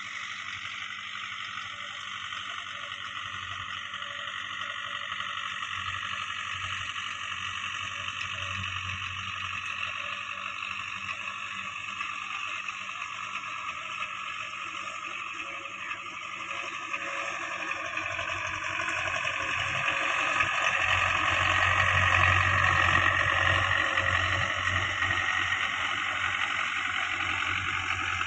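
Belarus tractor's diesel engine running steadily under load while it drags a laser land leveler through dry soil, growing louder as it comes closer and loudest about three-quarters of the way through.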